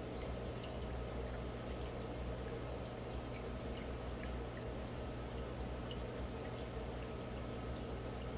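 Aquarium water trickling and bubbling, with scattered small drips over a steady low hum.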